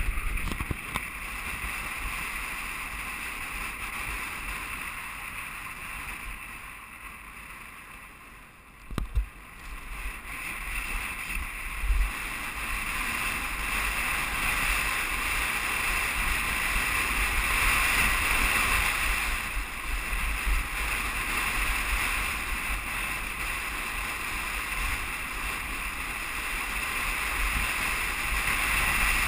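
Wind buffeting a helmet-mounted camera during a fast downhill mountain-bike descent: a steady rushing hiss with gusty low rumble. Two short thumps stand out, about nine and twelve seconds in.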